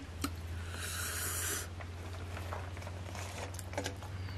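Biryani rice being slid and scraped by hand from a steel plate onto a banana leaf: a rustling swish about a second in, then a few faint taps and clicks. A low steady hum underlies it.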